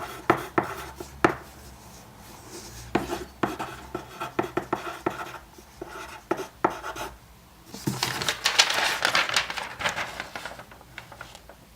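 Writing on paper: scattered taps and short strokes of a pen, then a few seconds of continuous scratching as words are written out.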